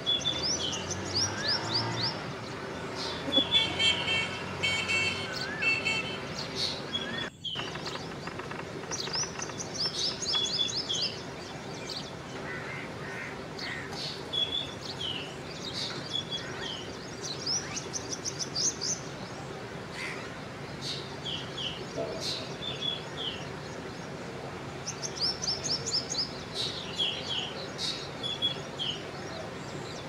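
Birds chirping: a bird repeats a quick run of high chirps followed by a few lower slurred notes, about every eight seconds, with other chirping between.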